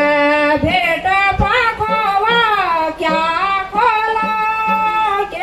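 Women singing a traditional Kumaoni jhoda folk song together, a melody with long held notes and gliding pitch.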